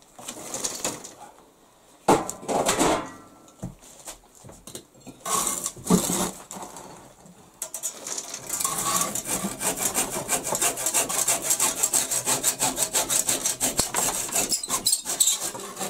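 Hand saw cutting a wooden board. A few separate scrapes and knocks come in the first half, then steady, rapid back-and-forth sawing strokes from about halfway through until just before the end.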